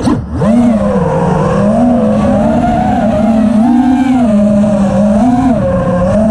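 ImpulseRC Reverb 5-inch FPV racing quadcopter's brushless motors and three-blade HQProp props whining loudly in flight. The pitch rises and falls with each throttle change, after a brief throttle chop and dip right at the start.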